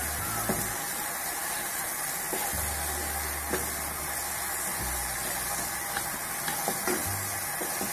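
Wooden spatula stirring and scraping a thick coconut and condensed-milk mixture around a nonstick wok, with short scrapes every second or so over a steady frying sizzle. The mixture is cooking down into a stiff dough, almost ready to shape into ladoos.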